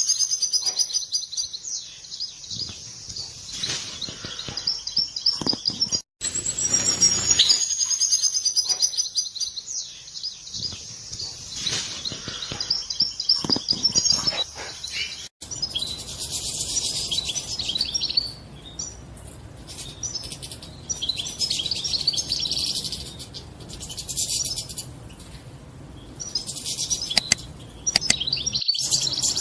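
European goldfinches twittering, a fast run of high chirps and trills. The sound breaks off sharply twice, about six and fifteen seconds in, and the last part sits over a steady background hiss.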